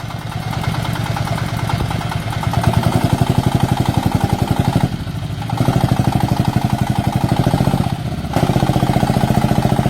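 The diesel engine of a homemade vehicle running hard with fast, even firing pulses, surging under load as it strains to drive out with its wheels sunk in. It eases off briefly about five seconds in and again about eight seconds in.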